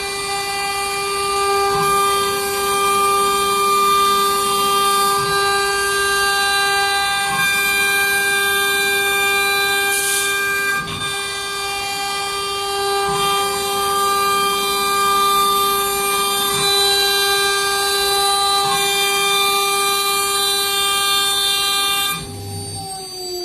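CNC router spindle running at a steady high-pitched whine as it cuts cabinet door panels. Near the end the whine drops in level and its pitch slides down.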